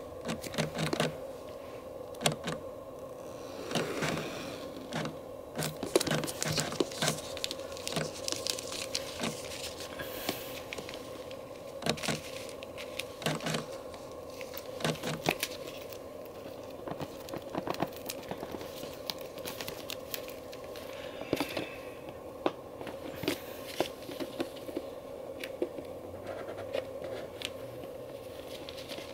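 Plastic shrink-wrap on an iPad mini box being cut with scissors and pulled off: irregular crinkling, tearing and scraping, with sharp crackles throughout. A steady faint hum runs underneath.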